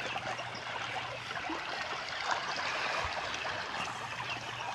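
Pond water splashing and trickling steadily with many small splashes as a crowd of catfish churns at the surface.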